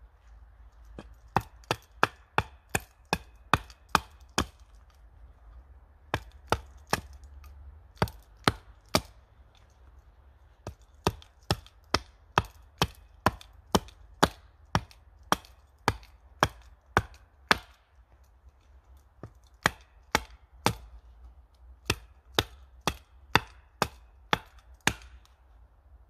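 Hatchet chopping at the end of an upright wooden pole: sharp knocks at about three a second, in runs of several seconds with short pauses between them.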